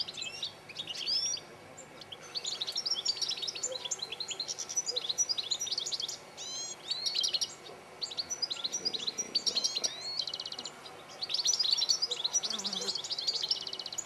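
European goldfinches twittering and singing: quick, liquid, tinkling phrases with buzzy trills, coming in bursts with short pauses.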